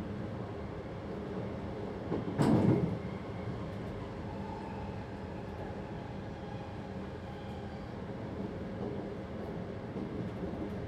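Train running, heard from inside the driver's cab: a steady rumble of wheels on the track, with one loud clunk about two and a half seconds in.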